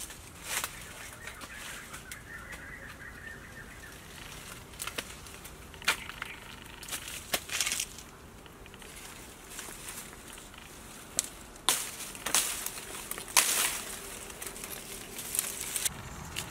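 Rustling and crackling of dry leaves and leafy branches as a person pushes through undergrowth and handles the plants, in irregular short bursts that come and go, louder several times a little past the middle.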